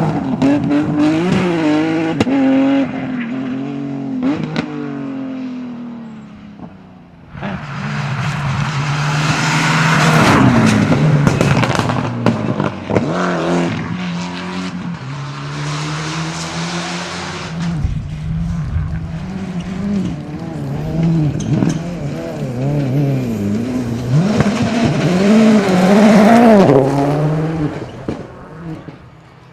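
Rally cars driven hard on a stage, engines revving up and down through gear changes as they pass, with tyre noise. The sound fades about six seconds in, a car comes in loud a second later, and another rises to a peak near the end.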